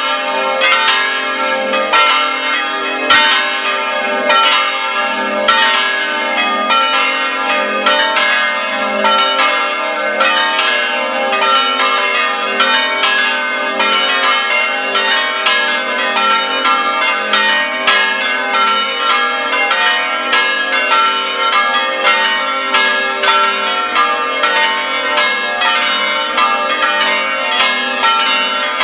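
Several church bells in an open steel-frame tower ringing together in a near-full peal, a steady stream of overlapping strokes about two a second. The two smallest bells are silent because they are out of order.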